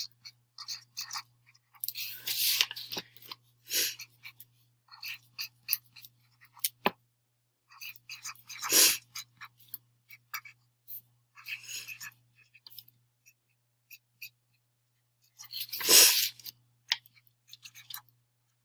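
Pen or marker scratching on paper in short, irregular strokes, with a few louder scrapes about 2, 9 and 16 seconds in, as a chemical equation is written out by hand.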